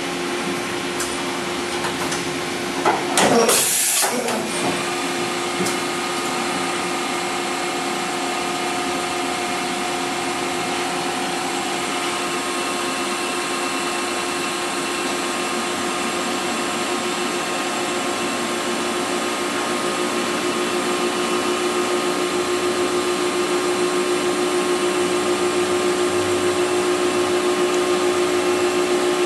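Mori Seiki NVX5100 CNC vertical machining center running under power: a steady machine hum with several steady tones, and a brief loud burst of noise about three seconds in. The hum grows slightly louder toward the end.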